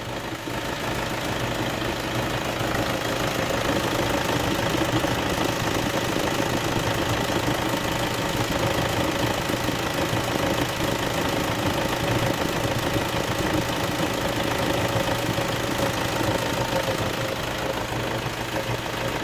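Toyota D-4D common-rail diesel engine idling steadily.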